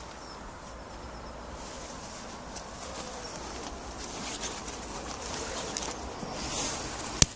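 Outdoor background noise: a steady rush with a few faint scattered ticks, and a single sharp click near the end.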